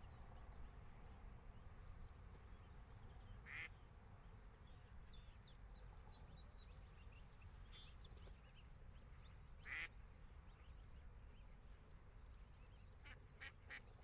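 Mallard ducks quacking quietly over a faint low rumble: two short single quacks, about four and ten seconds in, and a quick run of three brief calls near the end.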